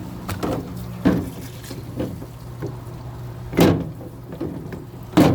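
A few scattered knocks and clunks of transmission parts being handled on a workbench, over a steady low hum. The loudest two come near the middle and near the end.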